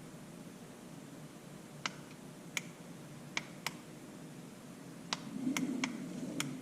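About eight sharp, irregularly spaced clicks from the remote control of a motorized pan-tilt camera head as its buttons are pressed, over a faint low hum.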